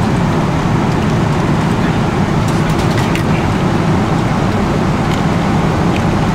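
Steady airliner cabin noise of a Boeing 777-300ER in flight: the even rush of airflow and engines heard from inside the cabin. A few faint clicks sound about halfway through.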